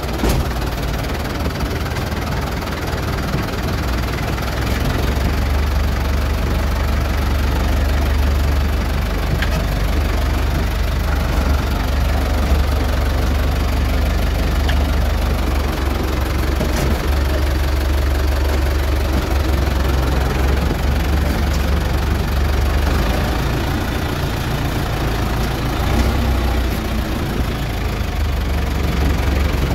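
Tractor diesel engine running steadily while driving, heard from inside the cab: a deep, even drone.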